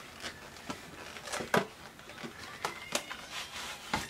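A makeup palette's cardboard box and packaging being handled: scattered soft clicks and rustles, the sharpest about one and a half seconds in.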